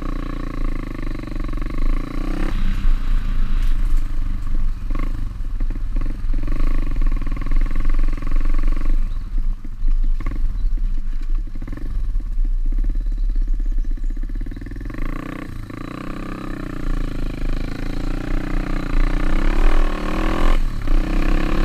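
Small single-cylinder pit bike engine running while riding off-road, its revs rising and falling with the throttle, with a few knocks and clatters from the rough track.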